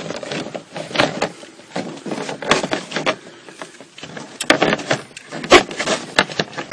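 Irregular knocks, clicks and scuffs of hands handling hardware close to the microphone, with the sharpest knock about five and a half seconds in.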